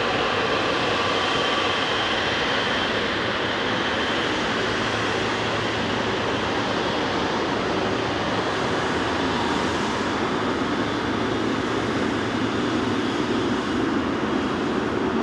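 Boeing 777-300ER's GE90 turbofan engines running at taxi power, a steady rushing hum, with a faint high whine that fades out a few seconds in.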